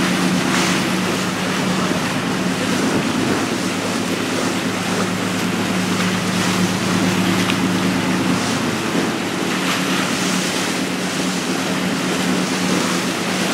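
A passenger boat's engines running steadily under way, a low hum, with the rushing wash of the churning wake behind the stern. The engine hum dips a little midway and comes back.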